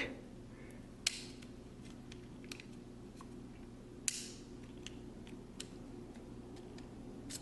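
Faint clicks and light taps of the metal parts of a Minolta MC Rokkor-PG 58mm f1.2 lens as its last body section is worked loose and lifted off the focusing helicoids. Two slightly louder knocks come about one second in and about four seconds in.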